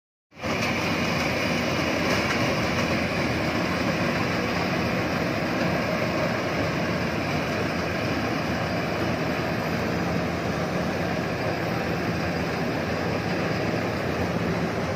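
Iseki HC80 rice combine harvester running steadily while cutting rice, a constant, even mechanical noise with a faint engine hum.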